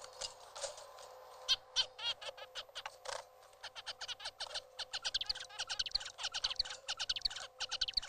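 Male zebra finch singing its directed courtship song to two females: a string of short, rapid notes, scattered at first and then coming fast and continuously from about three and a half seconds in. A faint steady tone runs underneath.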